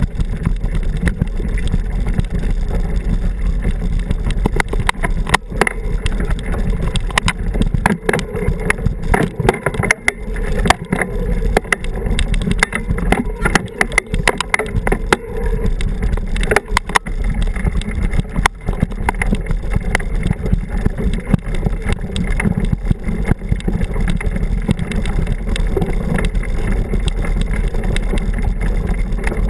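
Mountain bike riding down a rough dirt and gravel trail, heard from a camera on the ride: a steady rumble of tyres and vibration with sharp knocks and rattles from bumps, thickest from about five to eighteen seconds in.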